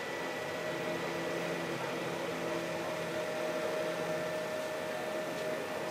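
A steady mechanical hum holding several constant tones over an even background hiss.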